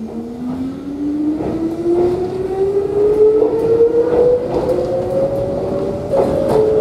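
Electric train heard from inside the car as it accelerates away from a station: the traction motors' whine rises steadily in pitch over a rumble from the running gear, growing louder as the train gathers speed.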